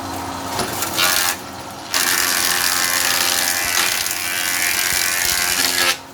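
Single-phase electric wood planer with its motor humming steadily, cutting a board of jati belanda: a short burst of cutting about a second in, then a loud cut of about four seconds that stops suddenly near the end.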